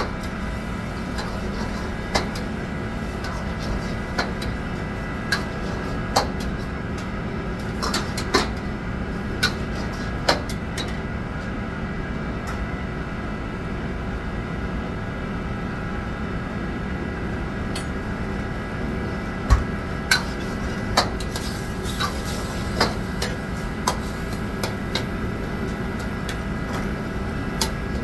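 Kitchen clatter: scattered clinks and knocks of pans and utensils over a steady machine drone.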